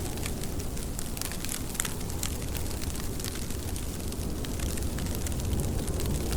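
Rain falling steadily, with many scattered drop ticks over a low, even rumble.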